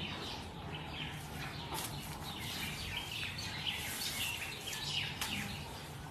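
Small birds chirping repeatedly over a steady background of outdoor noise.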